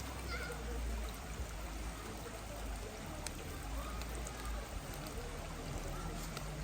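Steady rush of flowing water, like a stream.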